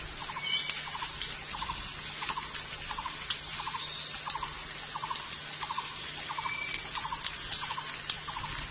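Jungle ambience: a steady high hiss with scattered sharp clicks, and a rhythmic call of three or four quick pulses repeating about twice a second throughout. A short whistle sounds near the start and again about two-thirds through.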